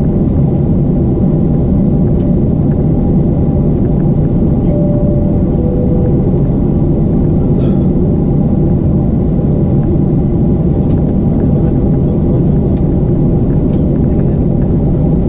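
Steady loud cabin drone inside a parked Boeing 737-400, the air-supply and machinery noise heard through the cabin. About five seconds in, a soft tone sounds briefly, then steps down to a lower note.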